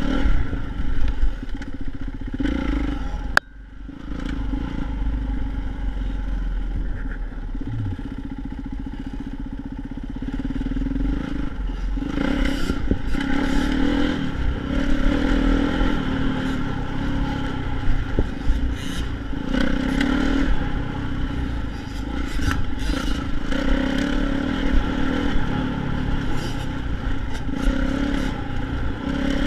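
Dirt bike engine running while being ridden on a trail, with clattering and scraping from the rough ground. A sharp click comes about three seconds in, and the sound dips briefly after it. The riding sounds rougher and busier from about twelve seconds in.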